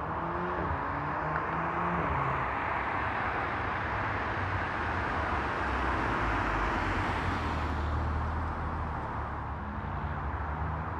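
Volkswagen Golf R with a resonator-deleted exhaust driving past: its turbocharged four-cylinder engine note climbs twice in the first two seconds, then the sound swells to its loudest as the car passes and fades away.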